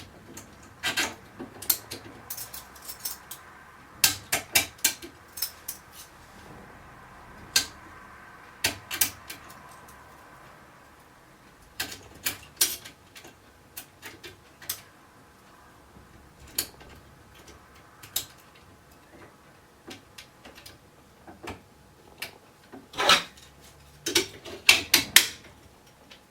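Small metal lock parts clicking and clinking in irregular clusters as a lever mortice sashlock is taken apart by hand and its levers handled, with the sharpest clinks near the end.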